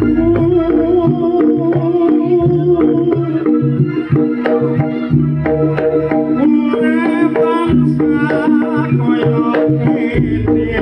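Live Javanese campursari music for a jaranan dance: kendang hand drums beating a steady rhythm over sustained gamelan tones, with a voice singing a wavering melody.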